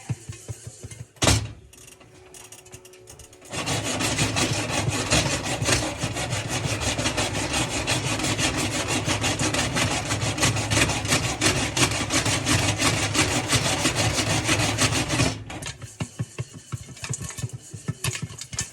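A covered pan of popping corn is slid and shaken back and forth on the stovetop, a steady scraping rattle that starts and stops abruptly and lasts about twelve seconds. Before and after it, scattered kernels pop with sharp clicks, and there is one loud knock early on.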